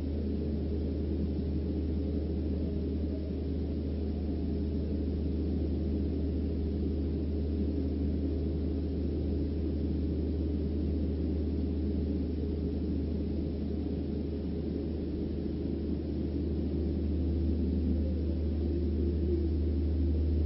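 A steady low hum with a muffled rumble, unchanging throughout.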